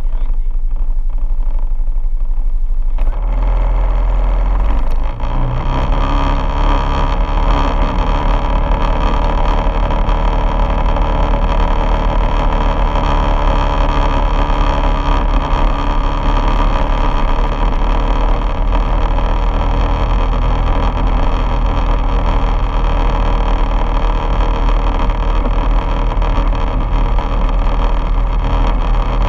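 Quad bike engine running, quieter for the first three seconds, then pulling away with a brief rise in revs. It settles into a steady run along a gravel track.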